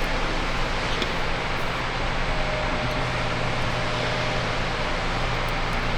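Steady hiss with a low hum underneath, and a faint thin tone through the middle.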